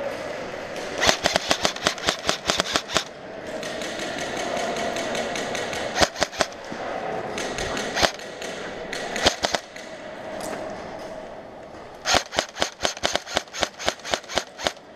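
Airsoft rifles firing inside a large empty concrete hall: two long strings of rapid shots, one about a second in and one near the end, at roughly ten shots a second, with a few single shots and short bursts between them.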